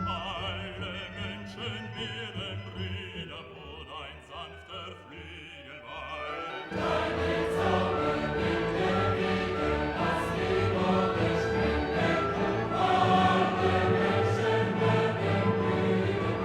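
Background music with choir-like singing, quieter at first, then fuller and louder from about seven seconds in.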